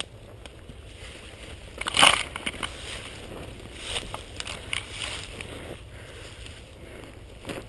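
Footsteps crunching through dry bush undergrowth, twigs and leaf litter crackling and snapping underfoot in an uneven rhythm, with one loud crunch about two seconds in. A low rumble of wind or handling on the helmet-mounted camera lies under it.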